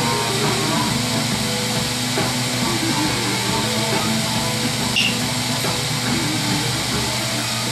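Oxy-fuel lampworking torch flame hissing steadily, with guitar music playing in the background.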